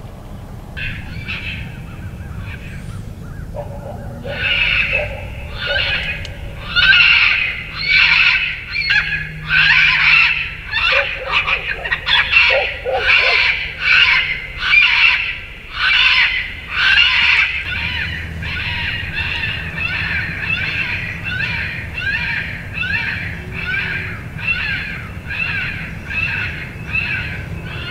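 Electronic predator caller playing a prey-distress call: a high, wailing squall repeated about once a second, starting about four seconds in and running on steadily.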